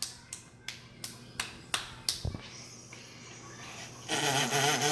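A run of sharp clicks or taps, roughly three a second, then a voice sounding briefly near the end.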